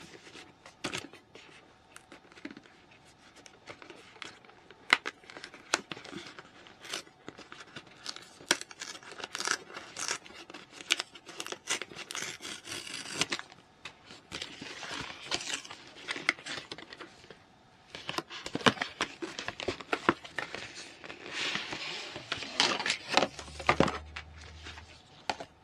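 Cardboard and plastic packaging of a GoPro Hero 9 Black box being handled and opened: rustling, tearing and crinkling, with scattered taps and clicks of the cardboard. The longest rustling comes about halfway through and again near the end, as the outer sleeve comes off.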